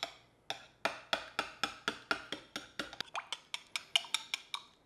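Metal spoon clinking quickly against a ceramic mug while stirring barbecue sauce, about six clinks a second, stopping shortly before the end.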